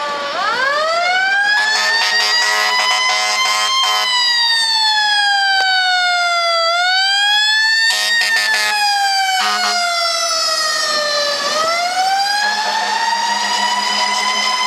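Fire truck siren wailing in slow cycles: it winds up in pitch, then slides down, then winds up again, several times. Air horn blasts sound over it, a long one about two seconds in and shorter ones around the middle.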